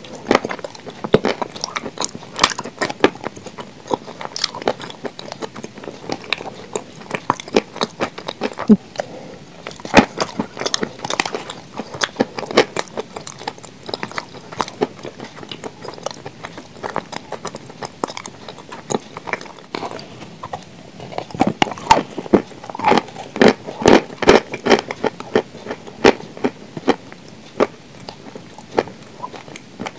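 Mouthfuls of blue Uzbek edible chalk chewed close to the microphone: many sharp, irregular crunches, thickest about two-thirds of the way through.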